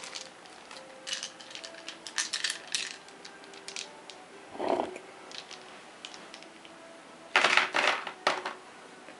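Small game cubes clicking and clattering onto a cardboard game board and against each other: scattered light clicks at first, then a louder burst of clatter near the end.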